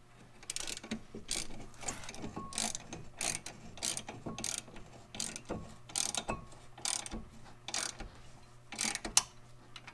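Hand ratchet and socket clicking as it tightens the brake caliper bracket bolts, in quick repeated strokes of roughly two a second.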